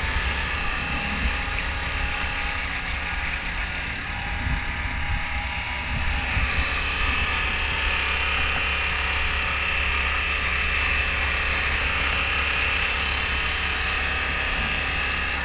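Pressure washer spraying a muddy dirt bike: a steady motor drone under a hiss of water spray that grows louder about six seconds in.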